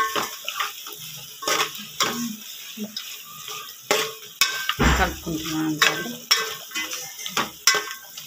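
Metal spoon stirring thick chicken curry in a metal pot, with irregular scraping and clinking against the pot's sides and bottom, as masala is mixed through. A dull thump comes about five seconds in.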